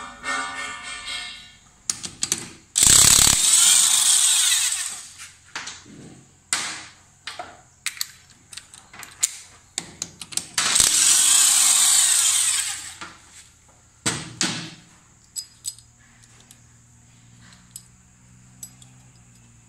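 Electric impact wrench run in two loud bursts of about two seconds each on motorcycle engine bolts, after a brief motor spin-up at the start. Scattered clicks and knocks of tools and metal parts come between the bursts and afterwards.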